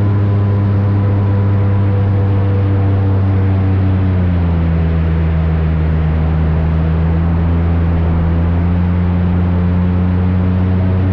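Airboat's engine and big air propeller running steadily at speed; the pitch drops a little about four seconds in and then holds.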